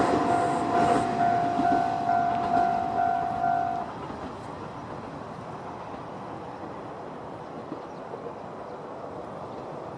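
Railway level-crossing warning bell dinging in a rapid repeating rhythm, a little over two strikes a second, over the fading rumble of a diesel railcar moving away. The bell cuts off about four seconds in, leaving a steady outdoor hiss.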